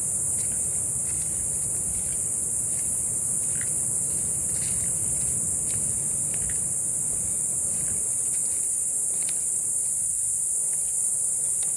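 A loud, steady, high-pitched drone of jungle insects, unbroken and even throughout.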